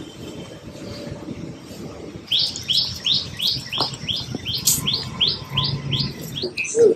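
A bird calling in a fast series of sharp, high, falling chirps, about three a second, starting a couple of seconds in, over a low steady background rumble.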